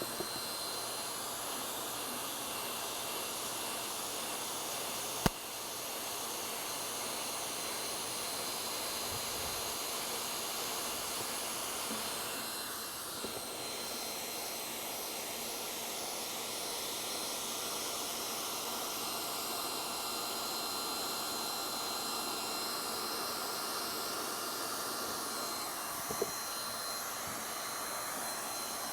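Handheld hot-air heat gun blowing steadily while welding thermoplastic roofing membrane: an even hiss with a thin high whine over it. One sharp click about five seconds in.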